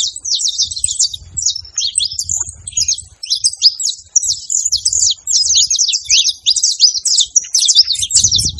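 Saffron finch (canário-da-terra) singing a long, fast run of high chirps and sweeping notes, with a brief pause about three seconds in.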